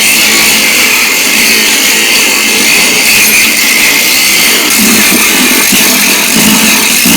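A power tool running steadily and loudly without a break.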